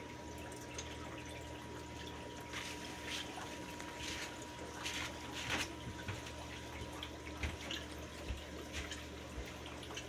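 Aquarium water trickling and dripping, with small irregular splashes, over a steady faint hum.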